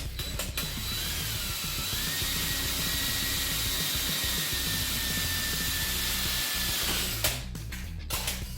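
Electric drill boring a small pilot hole through thin aluminum sheet. The motor whine rises in pitch for about a second, runs steady, then stops sharply with a click about seven seconds in. Background music plays underneath.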